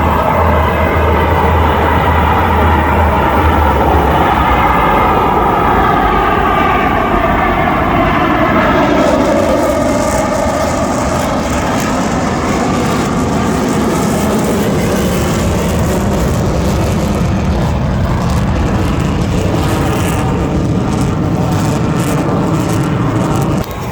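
Blue Angels F/A-18 Super Hornet jets passing in a loud flyby: a jet roar whose pitch falls over the first several seconds, then a rougher, crackling rumble that eases off only slightly.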